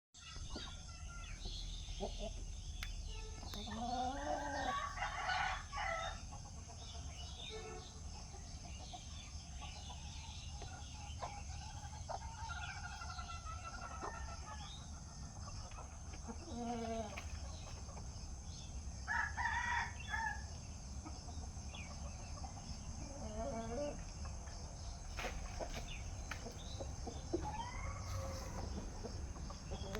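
Aseel chickens calling several times, a rooster crowing and hens clucking, with gaps between the calls over a steady low hum.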